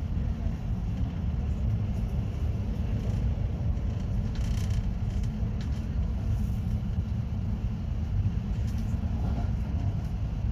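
Regional train running at speed, heard from inside the passenger car: a steady low rumble of wheels and running gear on the track.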